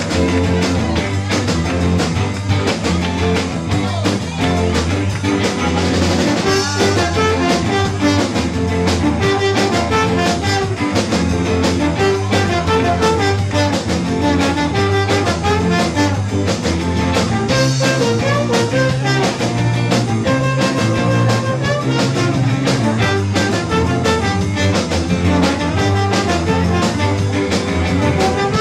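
Live band playing an upbeat number, with a slide trombone out front over electric guitars and drums.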